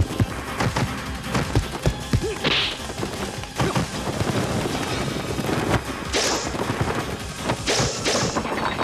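Martial-arts fight sound effects: a quick run of thwacking and thudding blows, with a few whooshing swishes about two and a half, six and eight seconds in.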